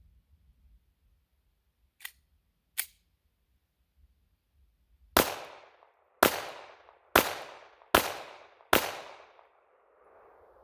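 Glock 42 .380 ACP pistol firing five shots, a little under a second apart, each with an echoing tail. Two sharp clicks come a few seconds before the first shot.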